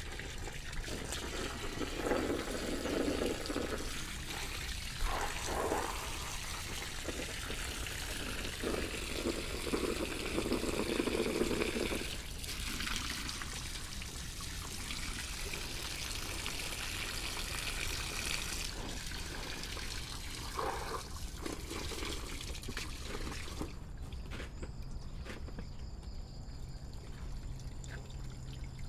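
Water falling and trickling into a tarpaulin frog-rearing pond, with drops rippling the surface. The steady splashing hiss stops about 24 seconds in, leaving a faint low hum.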